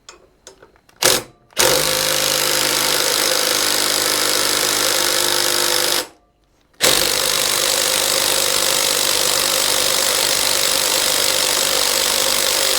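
Large impact wrench hammering on a flywheel puller bolt in two long runs, with a short break about six seconds in, trying to break the flywheel loose from the crankshaft of an antique Briggs & Stratton engine. A couple of sharp knocks come about a second in.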